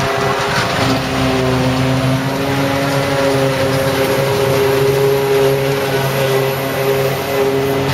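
Heavy diesel farm machinery running steadily under load during silage harvesting, a continuous engine drone whose pitch shifts slightly around a second in and again mid-way.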